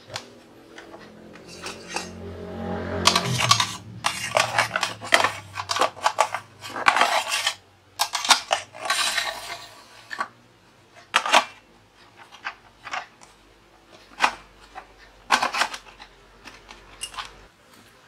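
Metal clinks, rattles and knocks as the metal bar grille door is handled and fitted into the aluminium-framed front of a bird travel box. The clattering is dense through the middle, then thins to scattered single clicks.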